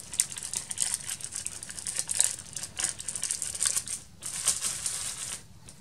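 Crinkly rustling and small clicks of card-making supplies being handled, with brief lulls about four seconds in and near the end.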